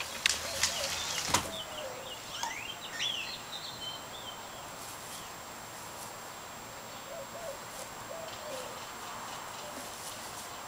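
Birds chirping, with a few sharp clicks in the first second and a half. After about three and a half seconds the chirping fades, leaving a steady outdoor hush with a few fainter calls.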